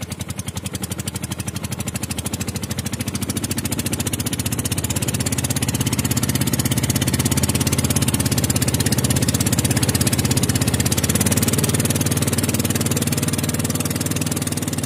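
Small engine of a wooden river longboat under way, running steadily with a rapid, even beat that grows a little louder a few seconds in.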